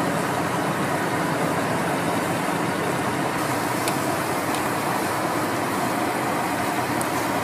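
Steady street background noise at a food stall, with the low running of passing and idling traffic.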